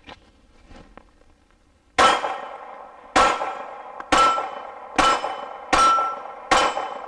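Six pistol shots from a Glock 42 (.380 ACP). The first comes about two seconds in and the rest follow a little under a second apart. Each shot is followed by a metallic ring from the steel plate targets being hit.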